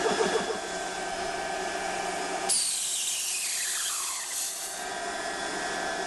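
Smaco portable high-pressure air compressor: the pump's rapid beat stops about half a second in, leaving its cooling fans humming steadily. About 2.5 s in, the bleed valve is opened and compressed air hisses out sharply, the hiss falling in pitch over about two seconds as the fill line is depressurised.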